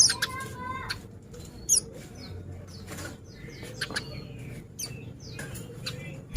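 Pleci (white-eye) chirping in quick, high, sliding notes, with sharp clicks scattered between them. The loudest notes come right at the start and about a second and a half in.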